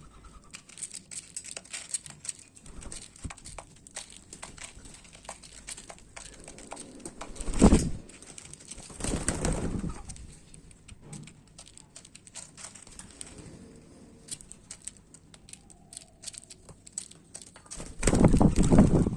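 Wild birds feeding on seed: a steady scatter of small sharp clicks from beaks pecking, broken by three louder flurries of wingbeats, about eight seconds in, again at ten seconds, and near the end.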